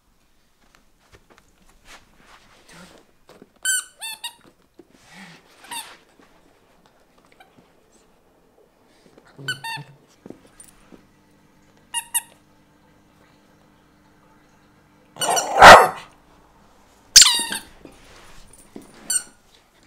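Small dog, a Maltese shih tzu, playing with a spiky rubber squeaky toy: short high squeaks come now and then, with the dog barking. The loudest burst comes about three-quarters of the way in, followed by a squeak that falls in pitch.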